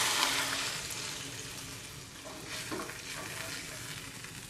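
Hot oil and spice tempering in a non-stick kadhai sizzling as water hits it: a loud hiss at first that dies down over a few seconds as the water cools the oil. A flat spatula stirs and scrapes the pan.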